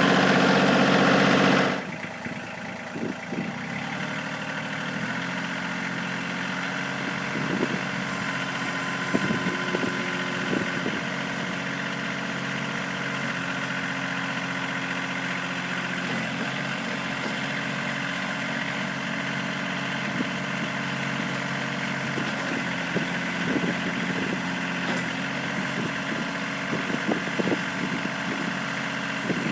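Kioti CK2610 compact tractor's three-cylinder diesel engine running. It is louder at first, then drops to a steady idle about two seconds in, with occasional faint knocks.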